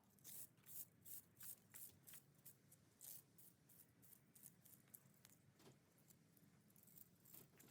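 Faint small clicks and ticks from cutters and small metal parts being handled, a quick string of them in the first couple of seconds, then scattered ones.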